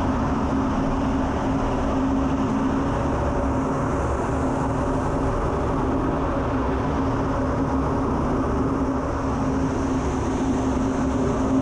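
Steady jet-engine and rushing-air noise inside an F-16 fighter's cockpit, with a constant low hum.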